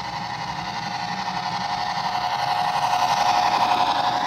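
Model freight train running past close by: a steady motor and gear hum with a fast, even pulse, growing louder as the train comes near and easing slightly near the end.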